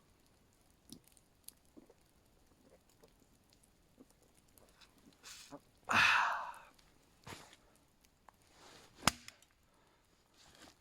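Axe splitting wood: a few light knocks, then a loud strike about six seconds in and a sharp crack about nine seconds in.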